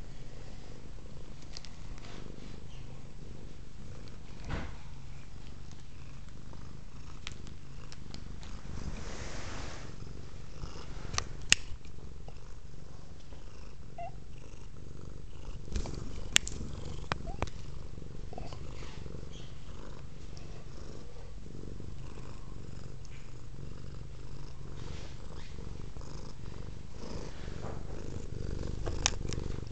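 Domestic cat purring steadily, very close to the microphone, with a few sharp clicks partway through.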